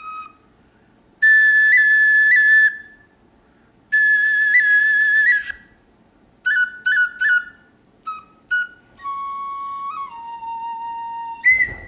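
Deer bone flute playing a slow, unaccompanied melody. There are two long high notes with small upward flicks, then a run of short separate notes, then a lower note held for a few seconds that steps down partway through. A brief higher note cuts off just before the end.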